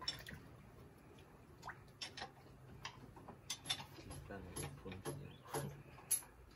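Scattered light metallic clicks and taps of hand tools and parts working on an open boat diesel engine, its valve gear exposed.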